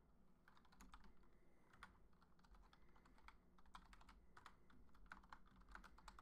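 Faint typing on a computer keyboard: irregular keystrokes, some in quick little runs.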